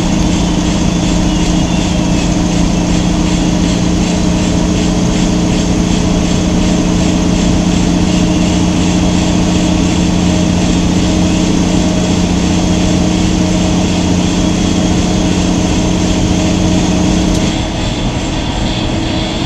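Semi-truck's diesel engine running steadily under road noise, heard from inside the cab, with a strong low hum. About 17.5 seconds in the hum cuts off abruptly and the sound drops a little.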